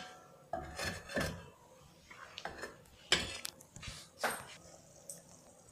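Stainless steel lid being set onto a steel kadai to cover it for simmering. Several separate metal-on-metal clinks and knocks come a second or so apart.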